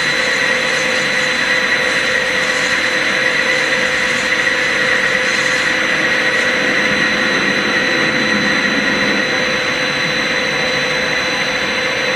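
CNC lathe with its spindle running clockwise while the tool takes a very light facing cut off the end of the part: a steady machine whine with a few fixed tones over a constant hiss.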